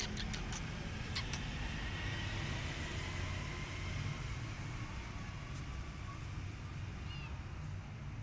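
Steady low rumble of a motor-vehicle engine running, with a few sharp clicks in the first second and again about a second in, and a faint short chirp about seven seconds in.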